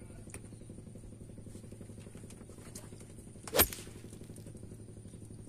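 A single sharp knock about three and a half seconds in as a fishing rod is snatched from its holder on a bamboo raft to strike a bite, over a steady low drone.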